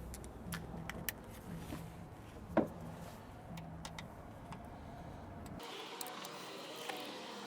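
Scattered metallic clicks and a sharper knock about two and a half seconds in, from a ratchet with a swivel and 18 mm socket working loose the oil drain bolt, over a low hum that comes and goes.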